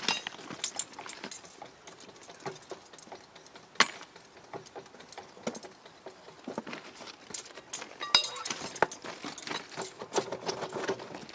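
Irregular metallic clicks, clinks and knocks of steel tools and a clamping device being handled and fitted on a steel rail, with a sharper knock about four seconds in and a busier run of clinks around eight seconds in.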